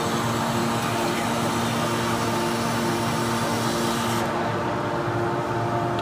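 Hydraulic power unit of an Enerpat 500-ton metal can baler running with a steady hum of several tones over machine noise; a hiss and the lowest tone cut off about four seconds in.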